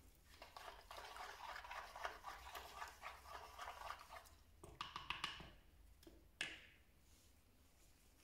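Faint wiping and rubbing of a cleaning cloth over hard plastic for about four seconds, followed by a few light clicks and a single sharp tap about six seconds in.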